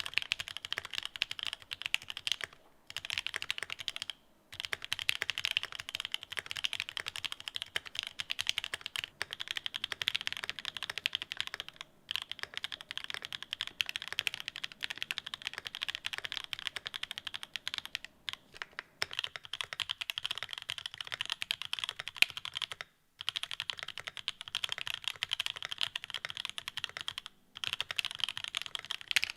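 Continuous fast typing on a mechanical keyboard with linear switches and Cherry-profile keycaps, a quick run of key strokes. It stops for a moment a few times, at about 3, 4, 12, 23 and 27 seconds in.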